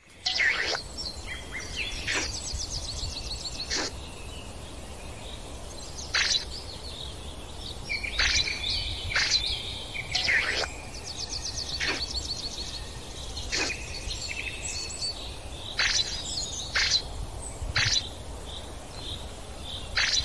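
Birds singing and calling: sharp downward-sweeping chirps every second or two and rapid high trills, over a steady low rumble.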